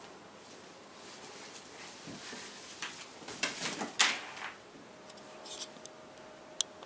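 Cat scrabbling in and against a fabric pop-up play tunnel: nylon rustling and scattered taps, with a sharp knock about four seconds in and a smaller one near the end.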